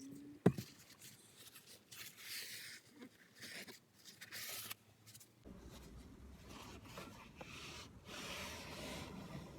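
Kitchen roll rubbing and scraping along a metal seat guide rail in short, irregular wiping strokes. A sharp click comes about half a second in.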